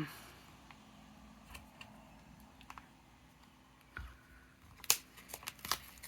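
Scattered light taps and clicks of paper and cardstock pieces being picked up and set down on a craft desk, with a soft thump at the start, a low thud about 4 s in and a sharp click about 5 s in.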